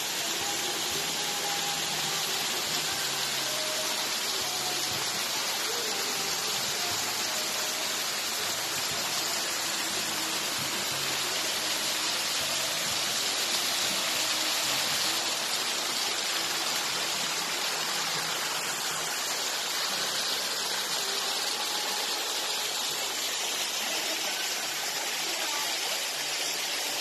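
Steady rush of flowing spring water, an even noise that holds unchanged throughout.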